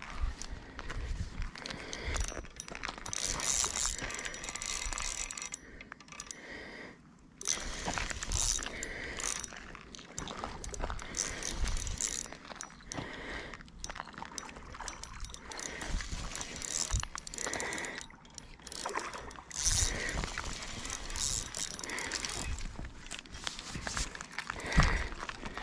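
Spinning reel being cranked in spurts with pauses while a hooked striped bass is reeled in toward the bank.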